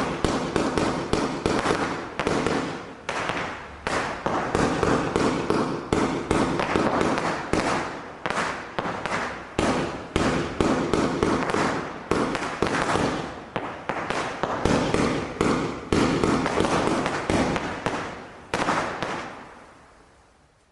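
A 151-shot consumer firework battery (Pyro Spektakel Level 7) firing: a rapid string of shots and bursts, several a second, starting abruptly and dying away near the end.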